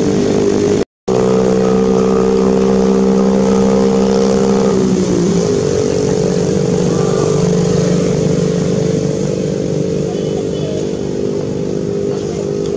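A motor engine running steadily close by, dropping in pitch about five seconds in and then running on a little more quietly. The sound cuts out for a moment about a second in.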